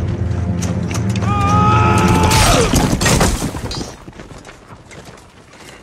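Film score with low sustained tones. A held high note slides downward, then a cluster of loud crashes and clangs cuts in, and after them the sound drops to quiet background.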